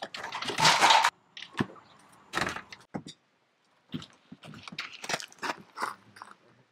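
A French door with slatted blinds being opened, the handle and blinds rattling loudly for about a second, followed by a string of short knocks and clicks.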